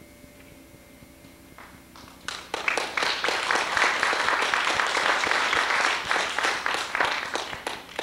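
The last guitar chord fading out, then an audience applauding, starting about two seconds in and dying away near the end.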